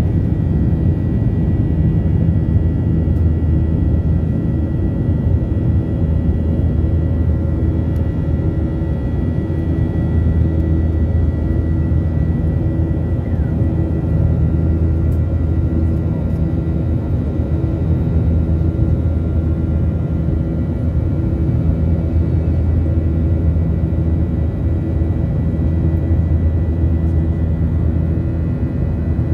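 Jet airliner cabin noise heard beside the wing of a Boeing 737 in flight: the CFM56 turbofan engine and airflow make a steady low drone, with a faint high whine held on one pitch.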